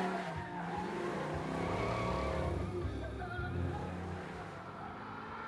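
1972 Dodge Challenger's V8 accelerating hard away, the engine note fading as the car pulls off.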